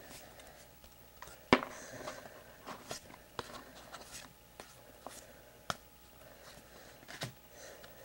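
Trading cards being handled and flipped through by hand: soft sliding and rustling with scattered sharp clicks, the loudest about a second and a half in.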